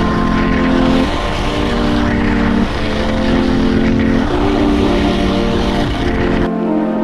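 Wind rushing and buffeting over the microphone during a fast ski run downhill, under background music of held chords. The wind noise cuts off suddenly near the end, leaving only the music.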